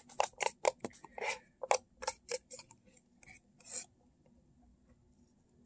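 Quick clicks and scrapes of a plastic fork against a paper ramen cup as the last noodles are scooped into the mouth, several a second, stopping about four seconds in.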